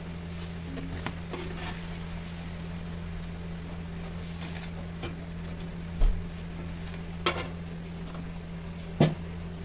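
A perforated steel slotted spoon knocking and scraping against an iron kadhai as fried batata vadas are lifted out of hot oil, a few sharp clinks with the loudest about six and nine seconds in. A faint sizzle of the oil and a steady low hum run underneath.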